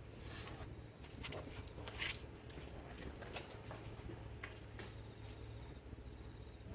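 Faint, scattered clicks and knocks, about half a dozen spread out, over a low steady hum.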